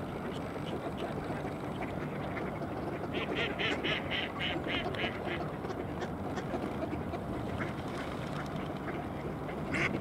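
Mallards quacking: a quick run of about nine quacks a few seconds in, with scattered single quacks before and after, over a steady background rush.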